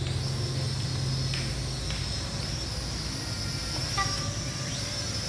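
Toy hand-sensing mini quadcopter in flight, its small propellers whirring steadily with a high whine and a low hum.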